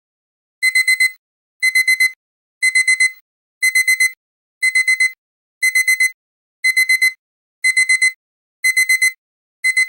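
Digital timer alarm beeping: quick groups of four high beeps, a group about once a second, starting a little over half a second in. It signals that the countdown has run out.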